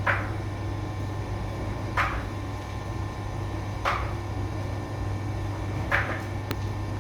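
Steady low hum of bakery equipment, with a short swishing sound repeating about every two seconds, four times.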